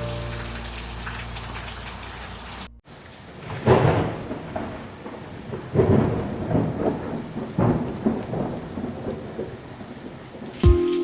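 Rain falling steadily, with several loud, uneven swells of thunder rumbling through it.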